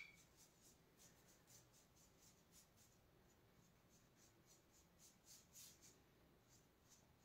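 Near silence, with faint, irregular scratches of a paintbrush working on the wall and in the paint palette.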